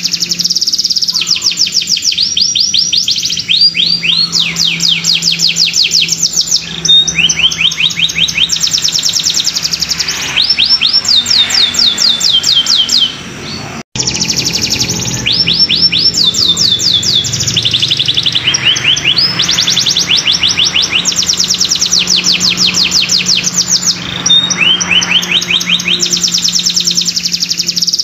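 Domestic canary in full song, singing continuously in fast trilled tours: each tour is a rapid run of the same high rising note repeated many times a second for one to two seconds, one tour following straight on from another. There is a brief pause about halfway through.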